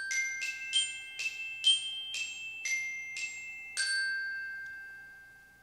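Short glockenspiel-style jingle: about ten quick struck notes that climb and then fall back down. The last note rings on and fades out over about two seconds.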